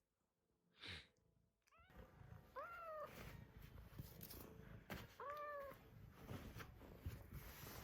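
Domestic cat giving two short meows, each rising then falling in pitch, about two and a half seconds apart, over soft clicking chewing noises as it eats dried pollack.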